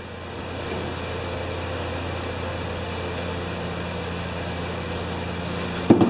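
Steady machine hum, like a fan or blower running, building up over the first second and then holding even. A single sharp knock comes just before the end.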